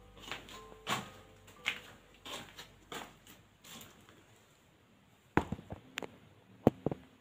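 Footsteps and rustling of someone moving about indoors, about one step every two-thirds of a second. After a short pause come a few sharp clicks and knocks near the end.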